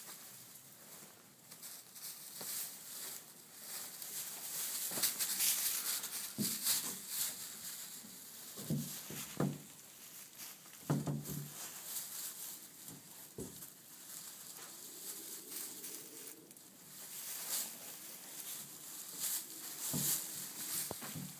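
Dry straw bedding rustling and crackling as a dog and a cat move about in it, with a few dull thumps near the middle.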